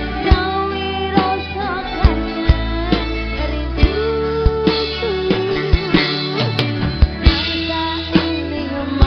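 Live dangdut band playing: a woman singing over electric guitars and a steady, driving drum beat.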